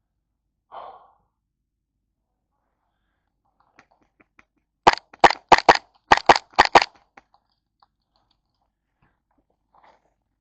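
Airsoft gun firing about eight sharp shots in two quick strings, roughly halfway through.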